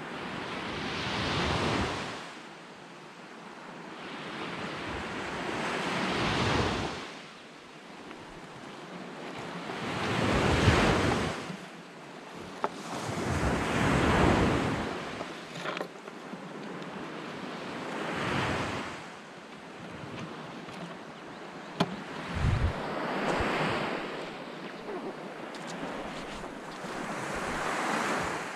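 Sea waves washing onto a pebble beach, the surf swelling and falling away about every four seconds, with wind on the microphone. A few sharp clicks are heard midway.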